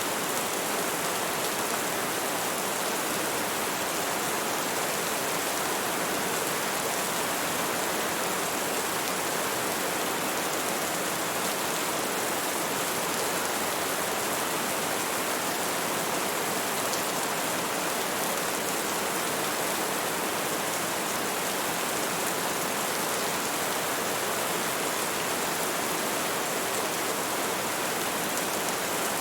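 Steady, even rainfall, a constant dense hiss of falling drops with no distinct individual impacts or thunder.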